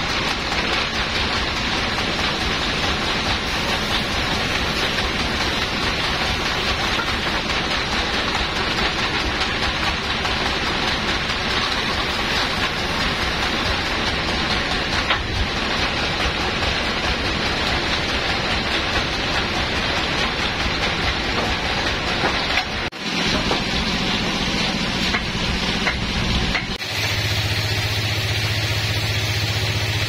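Large vertical band sawmill running: a steady dense whir of its motor and blade. It changes abruptly about 23 seconds in and again about 27 seconds in, after which a steady low motor hum stands out.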